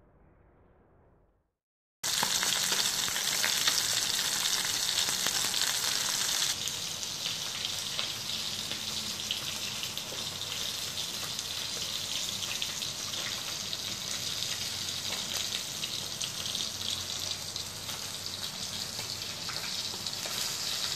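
Galunggong (round scad) frying in hot oil in a pan: a dense, steady sizzle that starts abruptly about two seconds in, after a moment of silence, and settles a little quieter after about six seconds.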